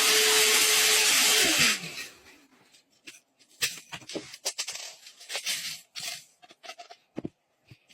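Mini handheld vacuum cleaner motor running with a loud rushing hiss and a steady whine, then switched off, its pitch falling as it spins down in under a second. Scattered clicks and rustles of the unit being handled follow.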